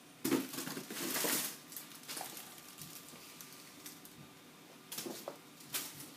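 Rustling and scrabbling as a kitten scrambles through a fabric play tunnel: a long burst in the first second and a half, then two short bursts near the end.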